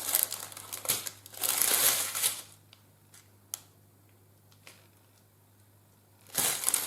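Small plastic packets of diamond painting drills crinkling as they are handled, in two bursts in the first couple of seconds and again near the end, with a few light clicks in the quiet between.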